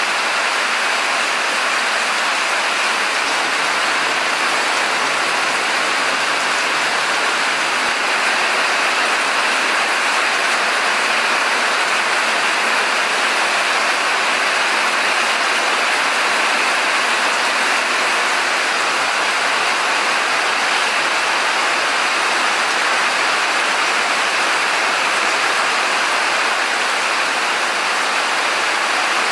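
Steady rushing of water, an even hiss with no breaks or distinct drops.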